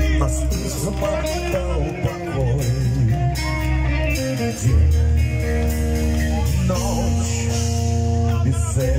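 Live metal band playing amplified electric guitars, bass guitar and drums, with long held chords over a heavy low end and voices mixed in.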